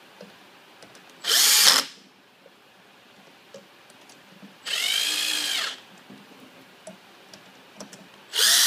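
Cordless drill/driver running in three short bursts, driving a steering wheel's mounting screws all the way down into the hub spacer. The middle burst lasts about a second, its pitch rising and then falling.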